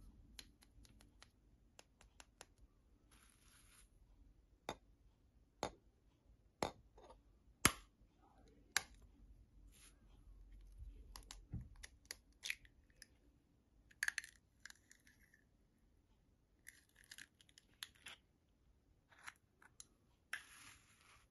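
A hen's eggshell tapped sharply about five times, roughly a second apart, then cracked and picked apart by fingers, with short bouts of crackling and scratching as the shell breaks and the egg is emptied into a bowl.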